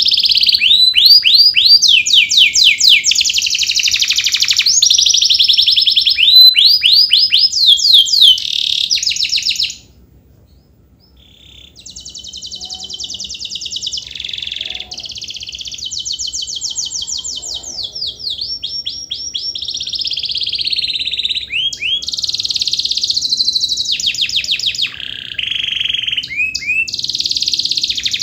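Domestic canary singing a long, loud song of fast trills and rolling notes, with a short pause about ten seconds in before it starts again.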